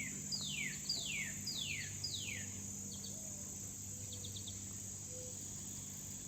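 Northern cardinal singing: a run of five clear falling whistles, about two a second, then a few short chirps, over a steady high insect drone.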